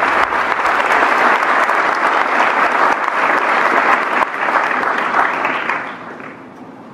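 Audience applauding, steady and loud, dying away about six seconds in.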